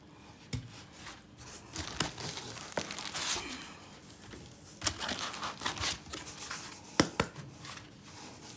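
Foam packing blocks being pulled out of a cardboard box, scraping and rubbing against the cardboard, with crinkling of plastic wrap and several sharp knocks.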